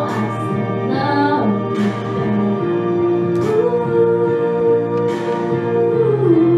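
A girl singing a slow song solo into a microphone over instrumental accompaniment, holding a long note in the second half that steps down near the end.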